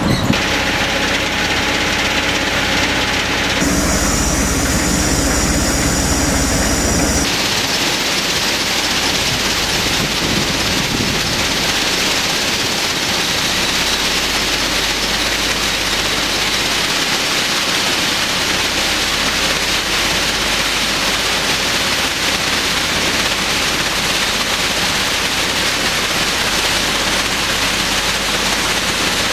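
Aggregate washing plant running: a steady machine hum with a low drone, changing twice in the first seven seconds, then giving way to an even rushing of water and slurry pouring through the plant.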